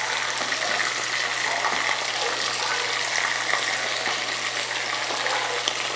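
Chicken pieces and potato chunks sizzling steadily in hot oil in a non-stick frying pan as they are browned, turned with wooden spatulas that give a few light clicks.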